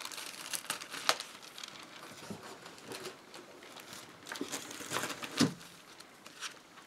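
Paper crinkling and rustling in short crackles as a thin glue-coated paper strip is handled and peeled from its protection paper, with a louder knock near the end.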